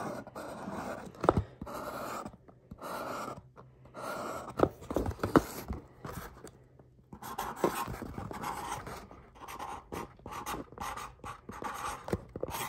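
Marker pen writing a number and a signature: a run of short strokes with brief pauses between them and a few sharp taps.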